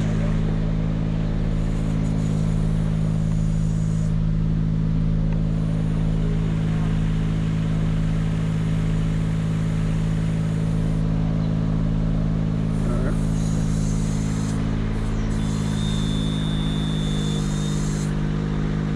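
Aerial lift's engine running steadily at a constant speed. Near the end a thin, high, steady tone sounds for about two seconds over the engine.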